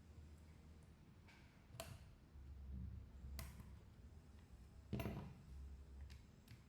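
Near silence with three faint, sharp clicks from hand tools and small parts on a smartphone being taken apart, the last one the loudest, over a low hum.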